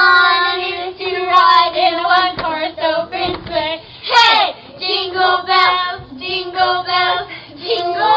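Children singing a Christmas carol together, phrase after phrase with short breaths between, heard through a video doorbell's microphone. About four seconds in, one voice slides up high and back down.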